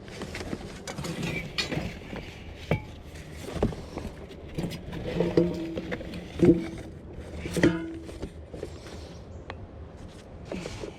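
Metal scrap being rummaged through and handled, clanking and clinking. A series of sharp knocks with brief ringing runs from about 1.5 to 8 seconds in, the loudest about six and a half seconds in.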